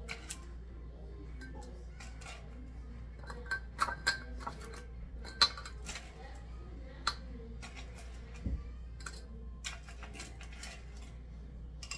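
Ice cubes clinking against a glass pitcher as they are set in: irregular sharp clinks, the loudest about five and a half seconds in.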